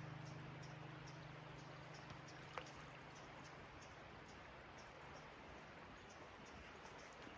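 Near silence: a held low music chord fading away over a faint steady hiss, with soft high ticking about three times a second and a single click about two and a half seconds in.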